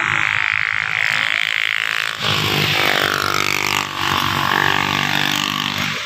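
A small engine runs with its pitch shifting up and down, growing fuller and stronger about two seconds in.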